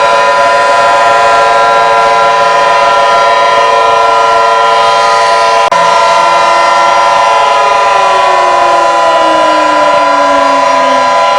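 Several outdoor warning sirens sounding together as a loud chord of steady pitches. About two-thirds of the way in, some of them start winding down, falling in pitch while the others hold steady. There is a brief break in the sound near the middle.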